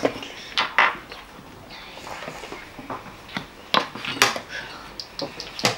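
A chess clock button pressed, then a scattering of sharp clicks and knocks from wooden chess pieces and clocks on the tables around.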